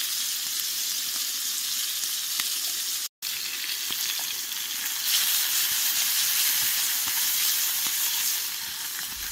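Venison steak frying in butter in a pan, a steady sizzle with fine crackling that cuts out for an instant about three seconds in.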